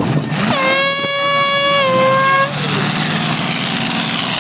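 A single horn blast held for about two seconds, starting about half a second in, over the steady noise of the derby cars' running engines.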